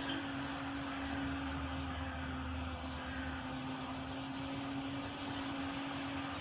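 Wall-mounted gas combi boiler running, a steady low hum under an even rushing noise.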